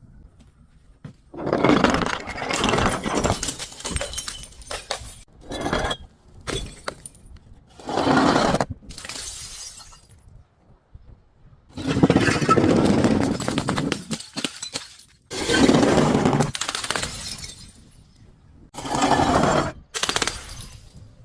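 Glass bottles being crushed and shattering, in a series of crunching bursts each a second or two long with short pauses between.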